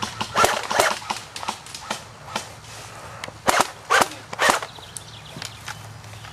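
Airsoft guns firing: a string of sharp single pops at irregular intervals, the loudest three about half a second apart a little past the middle.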